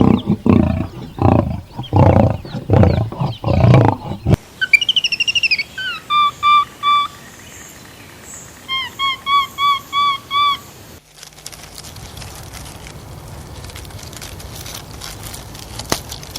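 A run of farm animal calls. About four seconds of loud, harshly pitched calls repeated about twice a second, then a bird calling in two runs of five or so short, clear, evenly spaced notes, then a few seconds of low steady background noise.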